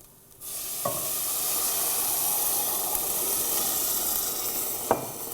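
Coconut milk poured into a pan of rice toasted in hot oil, hitting the pan with a sudden loud sizzle and hiss about half a second in that carries on steadily and eases near the end. Two sharp knocks, one just after the sizzle starts and one near the end.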